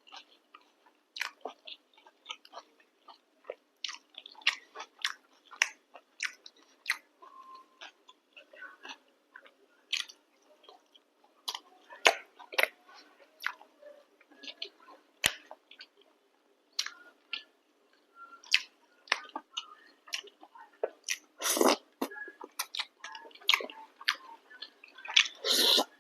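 A person eating chicken curry with chapati close to the microphone: chewing with many wet mouth smacks and clicks, and two louder, longer noisy bursts near the end.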